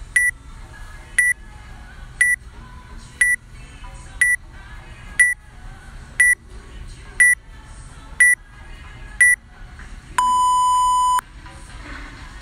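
Workout countdown timer beeping: ten short high beeps one second apart, then a single long, lower beep lasting about a second that signals the start of the workout.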